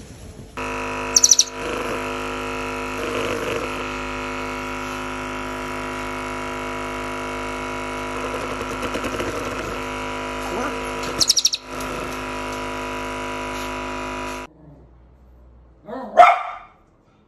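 Handheld percussion massage gun running with a steady motor hum that cuts off abruptly about fourteen seconds in, with two loud, short, shrill chirps over it, about a second in and again around eleven seconds. Near the end a small curly-coated dog barks once.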